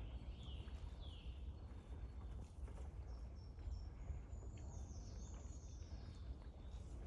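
Bird calls over a steady low rumble: two short chirps falling in pitch near the start, then a longer, higher call that slowly falls in pitch around the middle.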